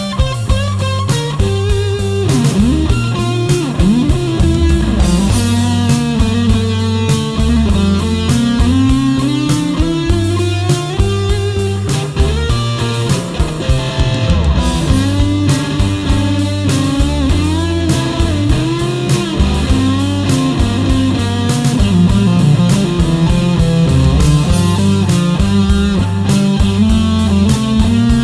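Electric guitar lead played through a 1970s G.P. Electronics IC130 MK2 solid-state amplifier, with sustained notes that slide up and down in pitch and delay and reverb added. It plays over a rock backing track with steady drums and bass.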